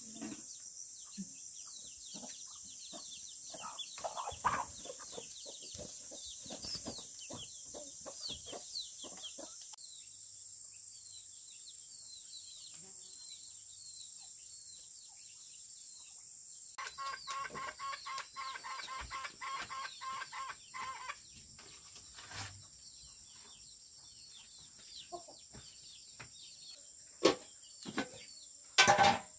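Chickens clucking, with a rhythmic run of clucking partway through, over small birds chirping and a steady high insect buzz. Two sharp knocks near the end.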